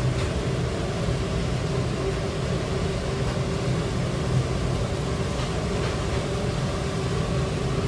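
Steady machine drone with a low hum and a rush of air, with a faint steady tone above it; it cuts off abruptly at the end.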